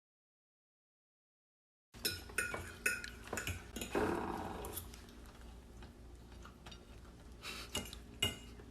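Silence for about two seconds, then faint scattered clicks, knocks and clinks of small hard objects being handled, with a short rustling swell about four seconds in.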